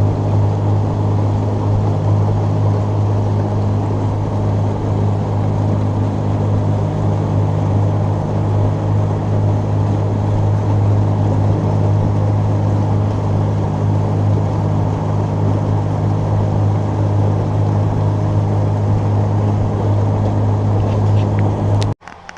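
Boat motor running steadily at speed, a constant low drone under rushing wind and water noise. It cuts off abruptly near the end.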